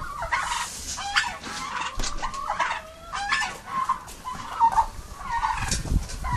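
A group of domestic turkeys calling, with many short overlapping calls that glide quickly in pitch.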